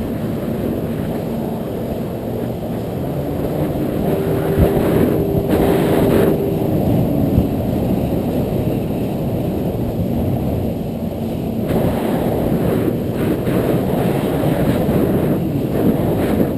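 Yamaha WaveRunner jet ski engine running steadily while under way.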